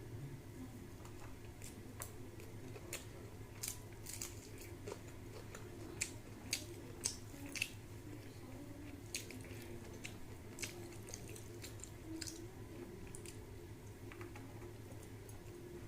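Close-up eating sounds: irregular wet mouth clicks and smacks of chewing, with a few louder smacks about six to eight seconds in, over a steady low hum.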